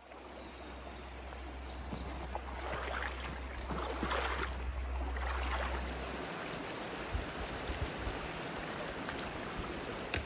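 Shallow mountain stream running over rocks and stones, a steady rush of water that fades in at the start. A low rumble lies under it for the first six seconds, and a few short low knocks follow.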